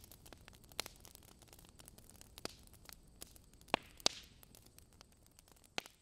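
Bonfire crackling faintly: a few sharp, irregularly spaced pops from burning wood over a quiet background.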